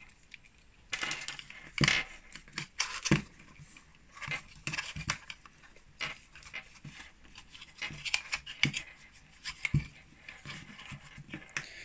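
Hands packing a plastic power adapter and its cable into a fabric mesh pouch: irregular rustling of the fabric and scattered light clicks and knocks of plastic and cable.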